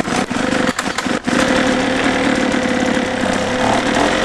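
Ryobi Jet Fan gas leaf blower's engine stutters a few times in the first second and a half, then runs steadily.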